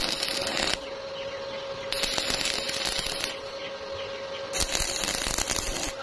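Stick-welding arc crackling in three short tack welds, each a little over a second long, joining a steel hinge to a round steel pipe. A steady hum carries on in the pauses between them.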